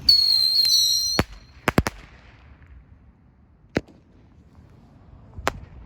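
Whistling bottle rockets going off: a loud, high, steady whistle for about a second, cut off by a sharp bang. Three quick cracks follow about half a second later, then a single pop near four seconds and another near the end.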